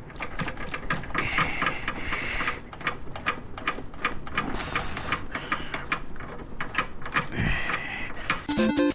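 Rapid, irregular mechanical clicking and clatter. Music starts near the end.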